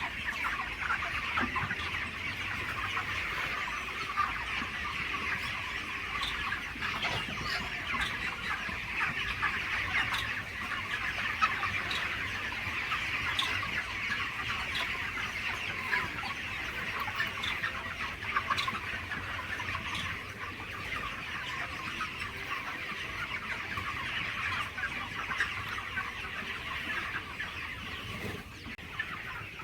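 A flock of chickens clucking and calling together in a dense, unbroken chatter.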